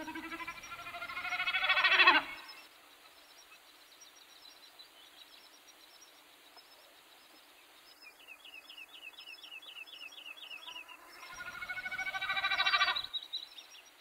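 Two loud, drawn-out animal calls, each about two seconds long, swelling and then cutting off abruptly: one at the start, one near the end. Between them comes a quieter bird trill of quick high notes, about four a second.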